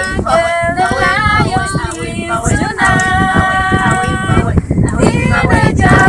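A group of women singing together unaccompanied, several voices holding notes in unison, with wind rumbling on the microphone underneath.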